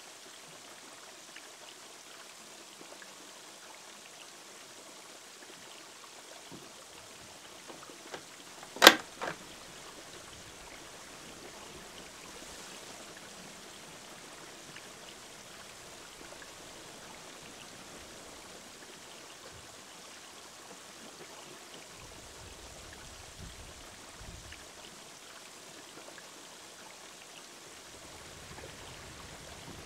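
Steady trickle and splash of a small waterfall running into a garden pond. About nine seconds in comes one sharp knock, and a softer one follows right after it.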